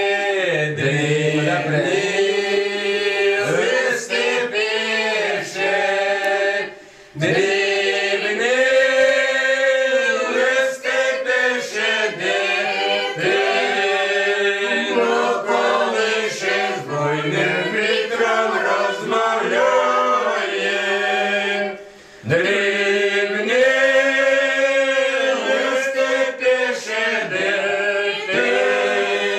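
A group of men and women singing a song together without accompaniment, in long held notes, pausing briefly for breath about a quarter of the way in and again about three quarters of the way in.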